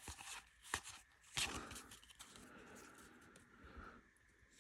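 Faint handling of baseball trading cards: a couple of light taps about a second in, then soft scraping as cards slide against each other.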